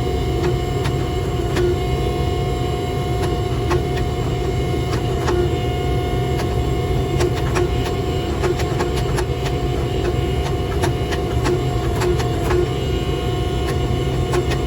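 Shop forge running, a steady loud roar with a faint steady hum, with scattered light clicks throughout.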